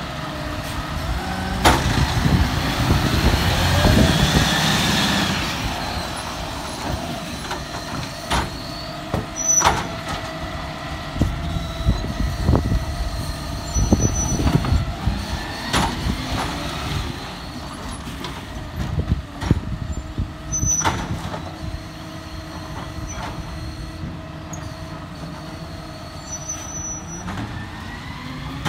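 Side-loading garbage truck's diesel engine running and revving up as its automated arm lifts and empties wheelie bins, with several sharp bangs of bins and the arm striking metal.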